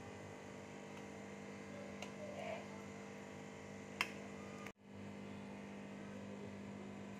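Steady electrical hum with a few light clicks of a metal spatula against the pan and plate, the sharpest about four seconds in. The sound cuts out for an instant just before five seconds.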